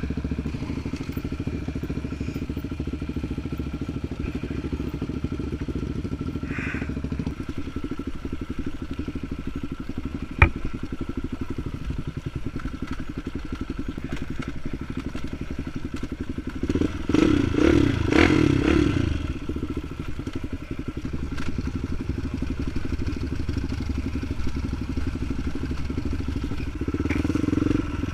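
Dirt bike engine running steadily under way, with a single sharp knock about a third of the way in and a louder burst of throttle about two-thirds of the way through.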